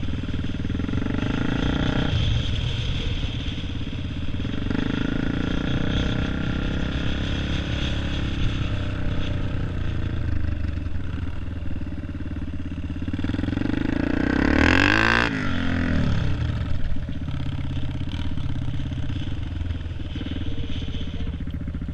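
Dirt bike engine heard from a camera mounted on the moving bike, running under throttle with its note dropping and picking up again several times. The loudest rev comes about two-thirds of the way through, rising and then falling away.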